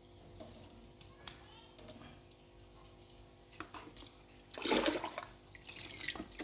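Water sloshing and gurgling in a plastic bucket as a plastic measuring jug is emptied into it and dipped under the surface. It is faint at first, then comes in a few louder splashing gushes from a little past halfway.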